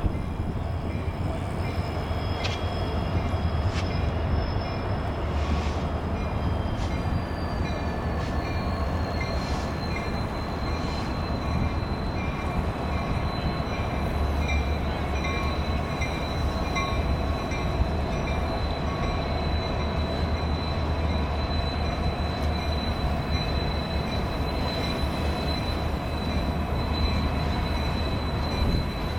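Union Pacific freight train with diesel locomotives rolling past below: a steady low rumble with a continuous high-pitched squeal that drops a little in pitch several seconds in and then holds.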